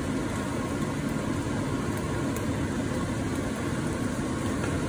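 Steady hiss and rumble of a stir-fry cooking in a small wok over a high gas flame.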